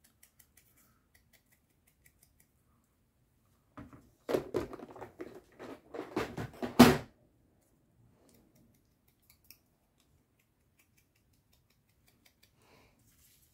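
Ink-craft supplies being handled on a work mat: a run of clicks and rustles for about three seconds, ending in one sharp clack.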